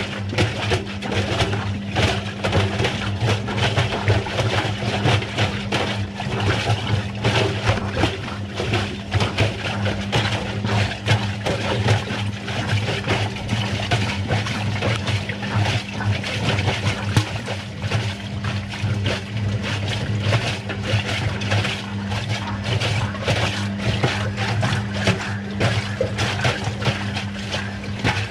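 Washing machine running a wash cycle: water sloshing and splashing in the turning drum over a steady motor hum.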